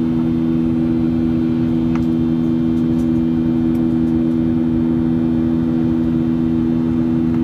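Steady cabin drone of a Boeing 737-800 in flight: its CFM56-7B turbofan engines and the airflow heard through the fuselage as an even rumble with a steady low hum.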